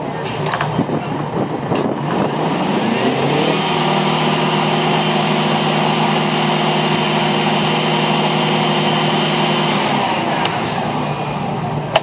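Pulling unit's engine revving up about two seconds in, running steadily at high speed as the rig hoists the tubing string, then dropping back toward idle near the end. A couple of sharp metal clanks in the first two seconds.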